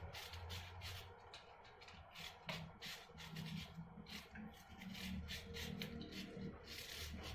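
Kitchen knife paring the skin off an apple held in the hand and cutting into the crisp flesh: a run of short, quick scraping strokes, several a second.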